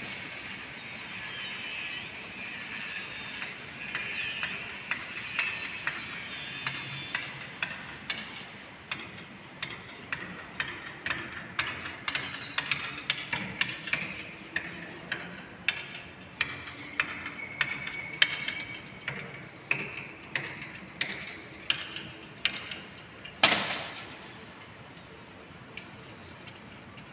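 Repeated sharp metallic strikes, about one to two a second, ending in one heavier ringing blow: old metal clothes-pole sockets being knocked off a flat's outside wall.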